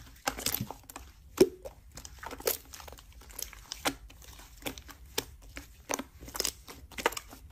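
Hands squeezing and pressing thick white slime, giving irregular small crackles, pops and squelches, several a second.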